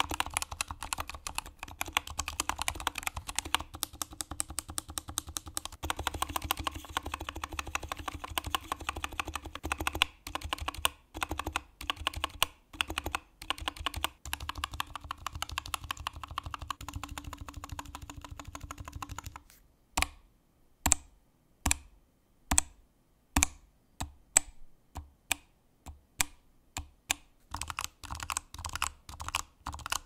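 Typing sound test on a MelGeek Z70 Ultra 65% low-profile aluminium mechanical keyboard with lubed TTC Blueish White tactile switches and EPBT keycaps: the switches bottom out quietly and clack on the way back up. Fast continuous typing gives way, about twenty seconds in, to single key presses about two a second, then typing picks up again near the end.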